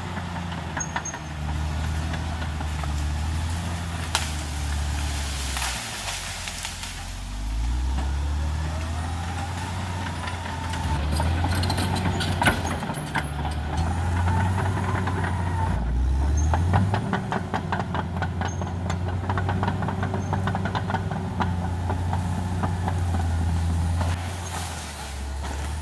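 Caterpillar D6R XL bulldozer's diesel engine running under load, its pitch sagging and rising again several times as the dozer pushes. In the second half a rapid, even clatter of several strikes a second joins it.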